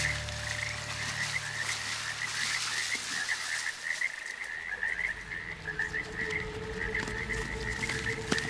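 Frog chorus: short chirping calls repeating about every half second without a break. A steady low tone joins about two-thirds of the way through, and a single click falls near the end.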